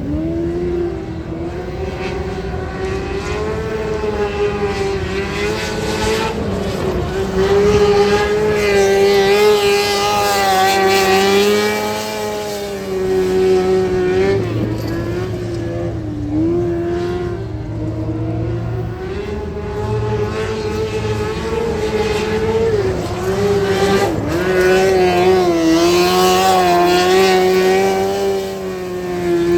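Wingless lightning sprint car engine running at high revs through practice laps. The engine note is steady and dips briefly and climbs back again and again, as the car lifts and gets back on the throttle around the turns.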